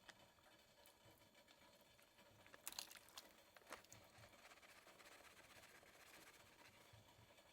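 Near silence, with a few faint short clicks a little before the middle.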